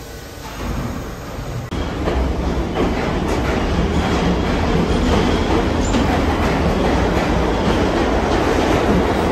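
New York City subway train running along a station platform at speed, with a steady loud rumble and wheels clattering over the rail joints. The sound is quieter at first and jumps up sharply just under two seconds in.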